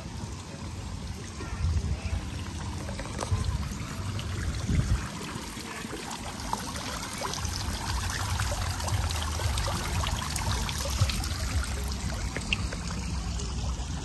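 Small tiered park fountain running, its water splashing and trickling into the stone basin, louder and brighter after about six seconds, over a low rumble.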